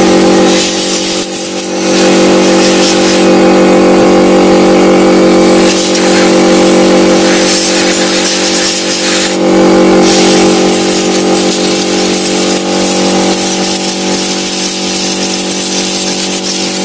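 Air compressor motor running steadily while compressed air is blown through a desktop computer case to clear dust, with a long blast of hissing air about three seconds in and a shorter one about nine seconds in.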